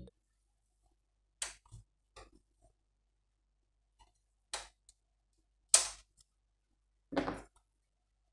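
Irregular, sharp clicks and knocks of hardware being handled while fitting an Inno3D RTX 2060 graphics card into a PC case, about six or seven in all with quiet gaps between them.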